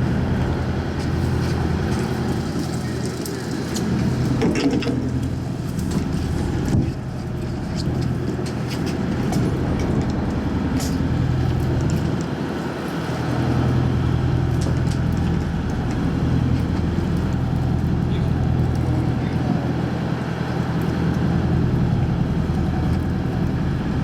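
Fishing boat's engine running steadily, a low even drone, with one sharp knock about seven seconds in.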